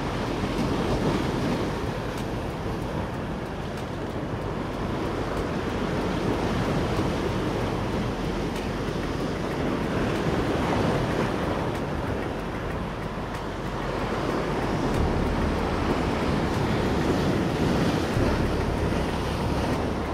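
Sea waves washing against a rocky shore, the surf swelling and easing every few seconds, with wind rumbling on the microphone.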